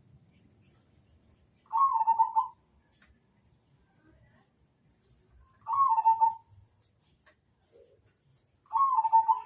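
Zebra dove (perkutut) cooing: three short coo phrases a few seconds apart.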